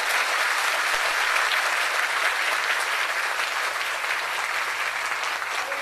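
Audience applauding with dense, steady clapping that eases slightly near the end.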